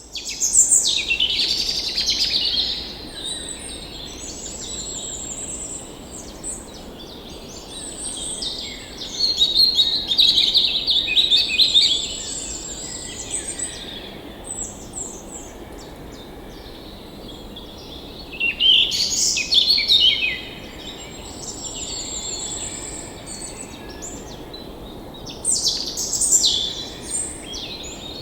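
Several songbirds singing and chirping in overlapping bouts of warbles and trills, over a steady rushing of flowing water from a waterfall.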